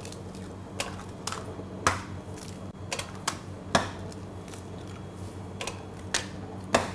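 Eggs being cracked on the rim of a stainless-steel mixing bowl, one after another: a string of sharp cracks and taps, some in quick pairs.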